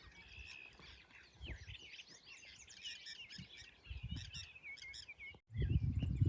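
Several songbirds singing and chirping outdoors, with many short quick chirps and trills overlapping. About five and a half seconds in the birdsong breaks off and loud low rumbling noise takes over.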